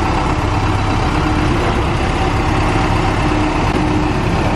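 Forklift engine running steadily with a low rumble and a faint steady tone above it.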